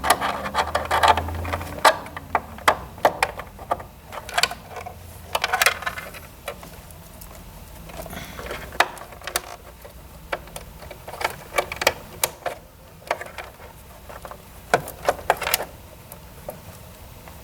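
Plastic cable connectors being handled and plugged into a massage chair's sound circuit board: irregular sharp clicks and snaps in clusters, with cables rustling between them.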